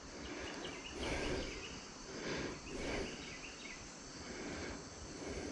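Faint outdoor ambience: insects chirring steadily, over a soft background hiss with a few gentle swells.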